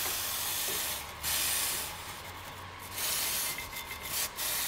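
An aerosol can spraying in two long hissing bursts, each about a second and a half, then a wire brush scrubbing the wheel hub in short strokes near the end.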